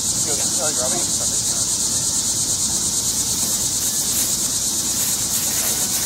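Chorus of insects calling: a steady, high-pitched drone with a fast, even pulse.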